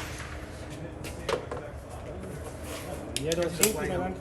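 Pistol gunshots at a shooting range: a sharp shot about a second in and another near the end, with a short stretch of voice between them.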